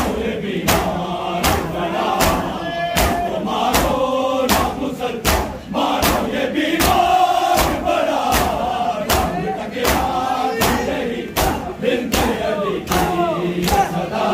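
A crowd of mourners beating their chests with their hands in unison (matam), one sharp slap about every three quarters of a second, over many men's voices chanting a noha.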